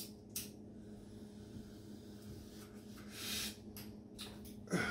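A person smoking from a small hand pipe: a lighter click, then a breathy rush of an inhale or exhale about three seconds in, over a steady low hum.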